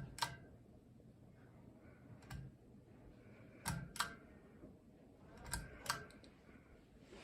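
Ceiling fan switch clicking in quick pairs, four times. A low motor hum cuts off at the first click.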